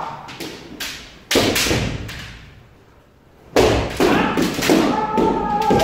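Kendo sparring: sharp thuds and cracks of bamboo shinai strikes and stamping footwork on a wooden dojo floor, the loudest about 1.3 and 3.6 seconds in. A long kiai shout comes in near the end.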